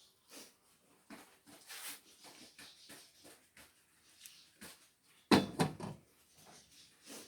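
Irregular small knocks and rustles of objects being handled, with one louder clatter a little past five seconds in.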